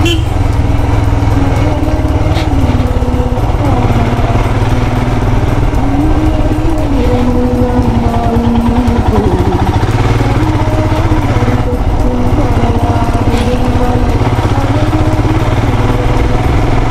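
Royal Enfield Himalayan's single-cylinder engine running under way, its pitch rising and falling with the throttle, over a steady rush of wind noise.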